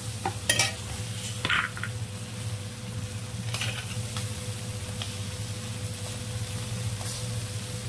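Manathakkali berries and spices sizzling in oil in a kadai, with a perforated metal spatula scraping and clicking against the pan a few times in the first second and a half, then steady sizzling, over a faint steady hum.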